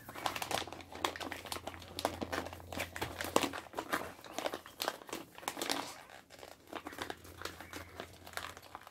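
Food packet crinkling and rustling as it is handled, in many small irregular crackles.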